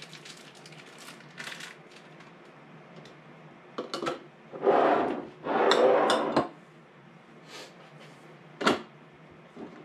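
Glass canning jars and a plastic canning funnel being handled on a counter: scattered clinks and knocks, with two louder scraping, rustling noises of about half a second each near the middle.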